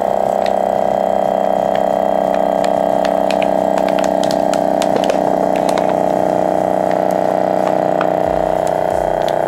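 CASO FastVac 500 vacuum sealer's pump running with a steady hum as it draws the air out of a bag holding an empty aluminium drink can. Scattered crackles come from the bag and the can crumpling under the vacuum: even on the gentle setting the suction crushes the can.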